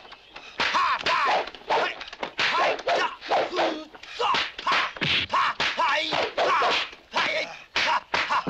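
Dubbed kung fu fight sound effects: a rapid, irregular run of whacks and swishing stick strikes, two or three a second, with brief gaps between flurries.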